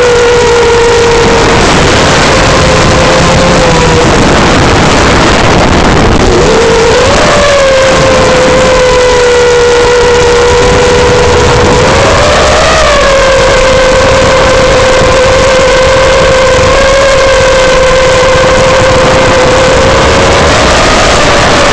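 Brushless motors and propellers of an iFlight Nazgul5 5-inch FPV quadcopter, whining steadily in flight. The pitch dips and swoops up with throttle changes, around 7 and 12 seconds in.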